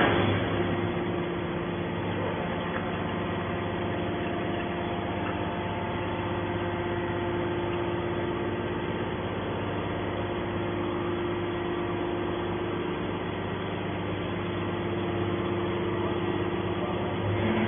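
Hydraulic scrap metal baler running: a steady motor-and-pump hum with a few held tones, no strokes or bangs.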